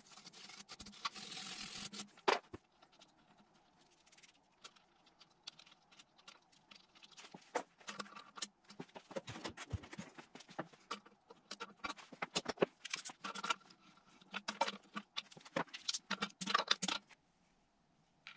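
Clicks and light metallic rattles of small line fittings being handled and threaded by hand into a turbocharger's coolant ports. A short scratchy brushing sound in the first couple of seconds.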